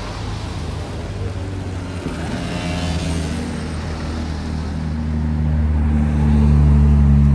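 Passing car traffic, then the twin-turbo V6 of a Ferrari 296 GTS running with a steady low engine note that grows louder over the second half as the car approaches, loudest near the end.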